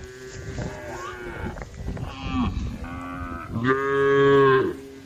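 Several cows mooing, with overlapping calls at different pitches as they call to the herd. The loudest is a long moo about three and a half seconds in that drops in pitch as it ends.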